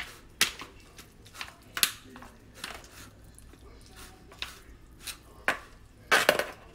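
A knife scraping and tapping against a disposable aluminium foil pan while flaking salted codfish, in irregular strokes about twice a second, with a louder flurry of scrapes near the end.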